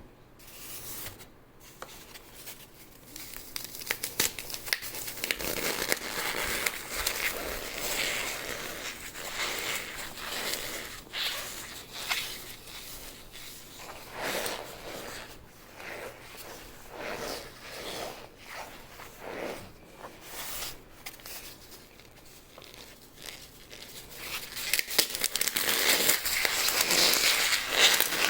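Dry floral foam coated in cornstarch and powder being crushed: dense crunching and crackling made of many small snaps, louder in the last few seconds.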